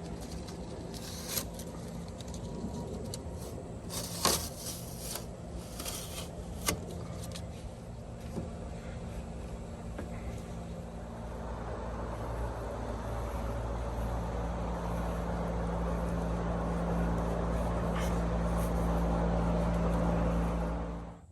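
An engine running steadily, with a few sharp clicks and knocks in the first several seconds. It grows gradually louder over the second half, then cuts off abruptly.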